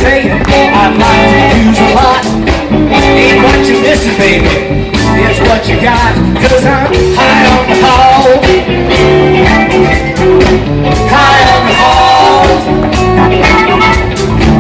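Live blues-rock band playing, with a singer over guitar, bass and drums.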